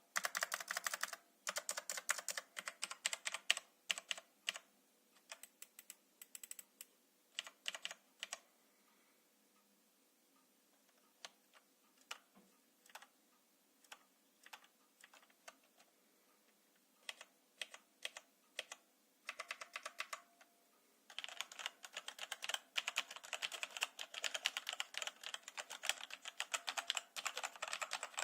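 Typing on a Connect IT CI-636 Evogear keyboard. It opens with fast runs of keystrokes, slows to scattered single key presses with a short lull in the middle, then goes back to steady fast typing for the last several seconds.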